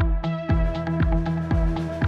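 Background music: an electronic track with a steady kick-drum beat, about two beats a second, over held synth tones.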